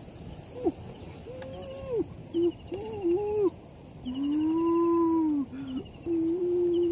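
An animal's drawn-out calls: several short cries that rise and fall in pitch, then a long held call about four seconds in and another long one starting near the end.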